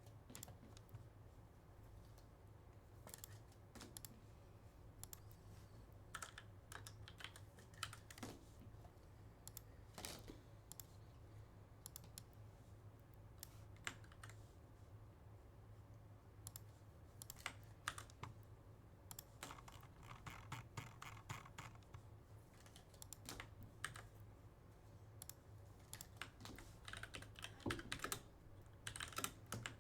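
Faint typing on a computer keyboard: irregular runs of key clicks broken by short pauses, over a low steady hum.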